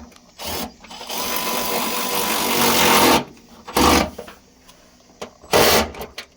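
Power drill/driver running a bolt into a rivnut: a brief burst, then a run of about two seconds that grows louder as the fastener seats, then two short bursts near the end to snug it.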